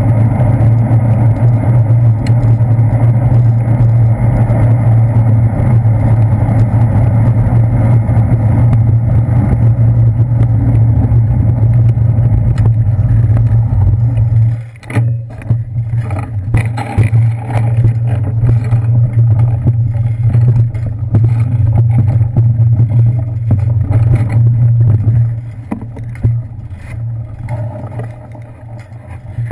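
Steady low rumble of wind and road vibration on a handlebar-mounted GoPro Hero 2 in its housing while a bicycle rolls along. It drops out briefly about halfway with a few knocks, picks up again, then fades near the end as the bike stops, with clicks from the camera being handled.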